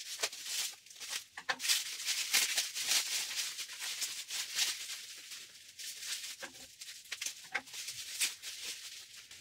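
Plastic bubble wrap being snipped with scissors and then pulled apart and off a wrapped object, crinkling and rustling in a dense run of crackles, loudest in the first half.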